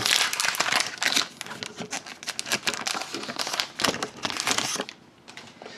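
Hockey card pack wrapper being torn open and crinkled, stopping about five seconds in.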